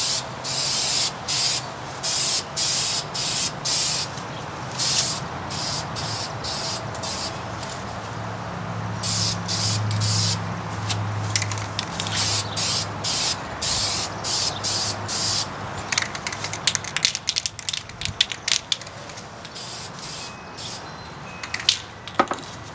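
Aerosol spray can of Krylon navy blue paint hissing in short, quick bursts about twice a second, then in longer passes. Near the end the spraying stops and a run of sharp clicks and knocks follows.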